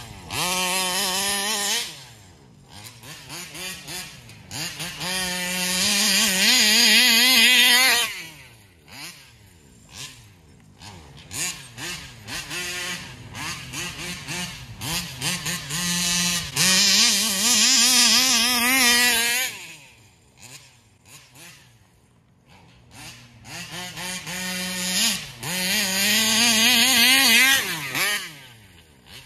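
RC car's Taylor 35cc case-reed two-stroke engine revving up and down as the car is driven. There are four loud runs at high revs, with quieter stretches between where the engine drops back and fades.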